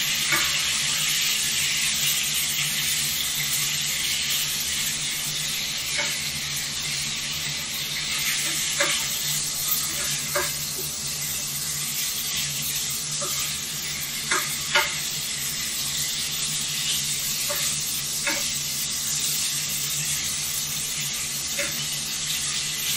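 Food frying in a pan: a steady sizzle with a low hum underneath, broken by scattered short, sharp clicks and pops every few seconds, the sharpest about fifteen seconds in.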